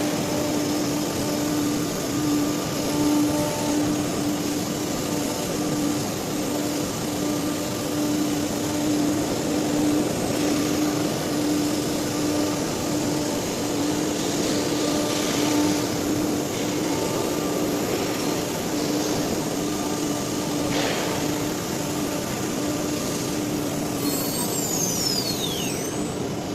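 Blue Elephant ELECNC1836 CNC nesting machine running: steady machine noise with a steady hum tone that stops near the end, where a few brief gliding whines are heard.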